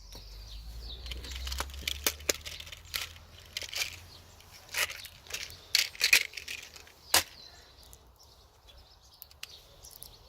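Handling noise: a run of crinkling, scraping and sharp clicks, loudest between about one and seven seconds in, from ammunition and its packaging being handled.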